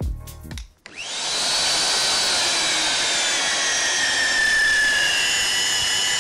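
Magnetic drill press motor starting about a second in and then running steadily with a high whine and hiss, the whine's pitch sagging slowly as it runs.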